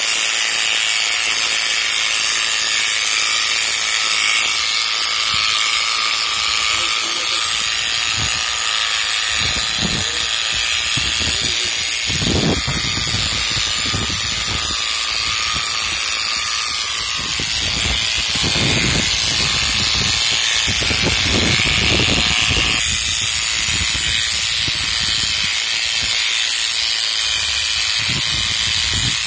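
Corded electric animal clipper running with a steady buzz as it shears through a dog's thick coat.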